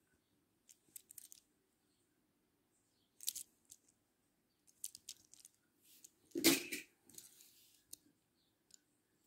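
Small plastic toy trains handled by hand on a quilt: scattered light clicks and knocks of plastic as they are picked up and turned over, with a louder, brief rustle about two-thirds of the way through.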